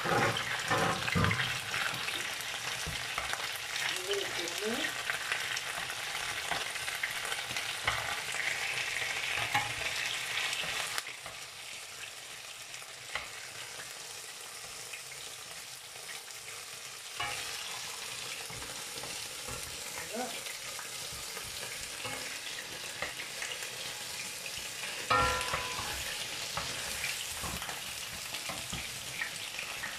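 Chicken pieces sizzling in hot oil in a large nonstick frying pan, a wooden spoon stirring and scraping them against the pan. The sizzle drops in level about a third of the way through and picks up again a little later, with a brief ringing clink near the end.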